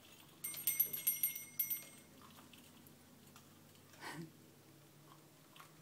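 Metal toy hardware jingling and ringing in several clinks over about a second and a half, as a parrot jostles the toys hanging from their chains and clips. A short, soft knock follows about four seconds in.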